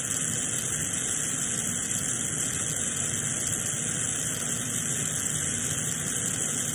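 Bench-mounted glassworking torch burning with a steady, even hiss while borosilicate glass is heated in its flame.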